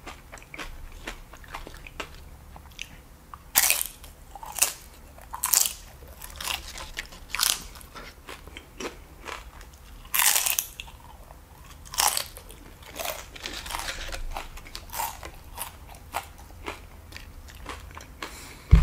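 Crunching and chewing of cheese-covered tortilla chips: a run of sharp, irregular crunches every second or so, with quieter chewing between them.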